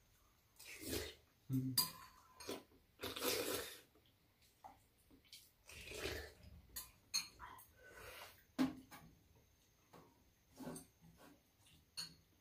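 Metal spoons clinking and scraping against ceramic bowls as two people eat soup, with several short slurps and eating noises between a scatter of sharp clinks.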